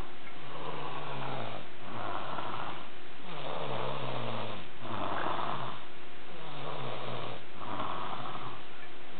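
Loud snoring of a sleeper: a steady rhythm of rasping breaths, a new one about every second and a half, each with a low rattle that drops in pitch.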